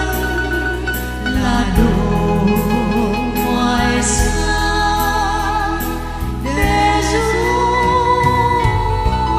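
Women's voices singing a slow Vietnamese ballad over organ accompaniment, the melody wavering with vibrato, then rising to a long held high note about seven seconds in.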